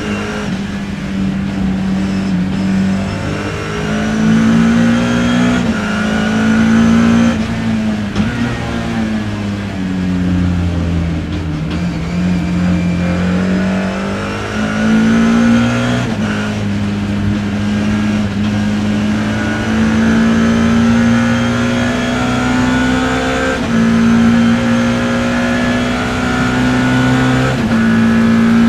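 BMW E30 M3's four-cylinder racing engine at race pace, heard from inside the car: the revs climb and fall, jumping abruptly at each gear change, with a long slow fall and rise in pitch around the middle.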